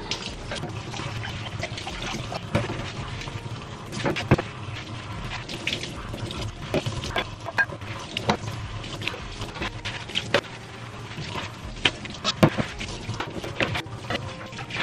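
Kitchen tap running into a stainless steel sink during hand dish-washing, with frequent clinks and knocks of glassware and utensils being rinsed and scrubbed, the sharpest about four seconds in and again near the end.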